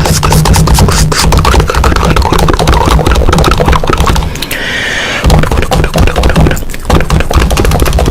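Loud, heavily distorted edited sound-effect audio: dense rapid clicks over a heavy bass, with a brief hissy break about four and a half seconds in.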